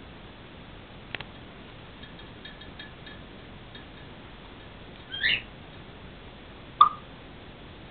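African grey parrot calling: a short rising whistle about five seconds in, then a short, sharp call with a click about a second and a half later, after a few faint clicks.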